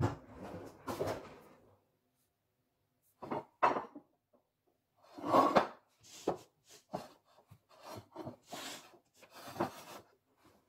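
A series of irregular short knocks and scrapes of kitchenware being handled on a counter: a glass baking dish and a plastic cutting board being moved and set down.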